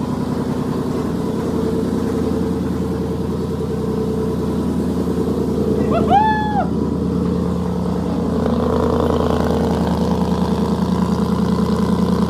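Ford Mustang GT's V8 engine idling steadily, just started on a battery borrowed from another car after its own went dead, a little louder from about eight seconds in. A person gives one short call about six seconds in.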